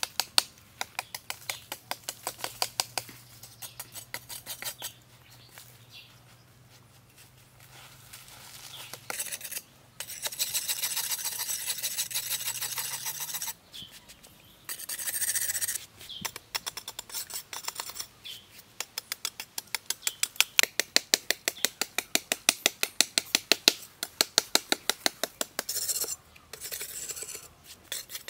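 Machete blade chipping and scraping at the hard, dry earth of a termite mound in quick repeated strokes. About ten seconds in there are a few seconds of continuous scraping.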